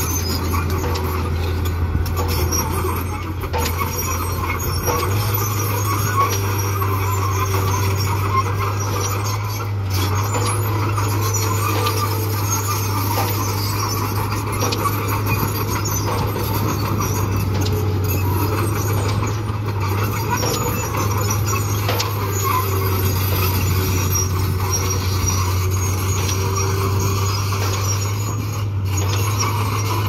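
Small crawler bulldozer's diesel engine running steadily under load while it pushes dirt, its note stepping up slightly about five seconds in, with the clatter of its steel tracks.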